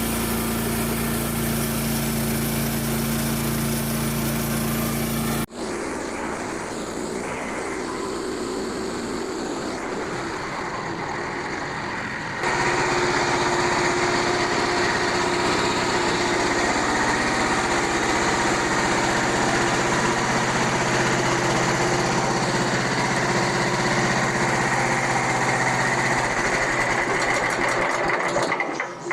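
Portable bandsaw sawmill's small gasoline engine running steadily, heard in several clips cut together; the sound changes abruptly about five and twelve seconds in.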